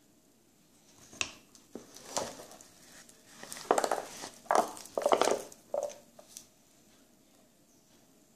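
Plastic film crinkling and light clicks as a plastic-wrapped wristwatch is lifted out of its presentation box, in a run of rustles that is loudest around the middle.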